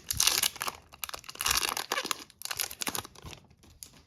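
Hockey card pack wrapper being torn open and crinkled by hand, in three short noisy spells that die away about three seconds in.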